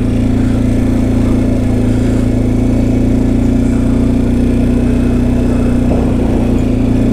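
ATV engine running at a steady speed in four-wheel drive, a constant hum with no change in pitch.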